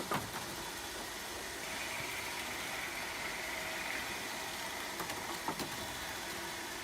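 Steady hum of sawmill processing-line machinery, with a faint whine rising and fading in the middle and a few light knocks.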